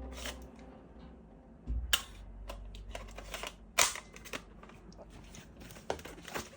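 Hard plastic toy parts clicking and clattering as they are handled, with a few sharper clicks about every two seconds.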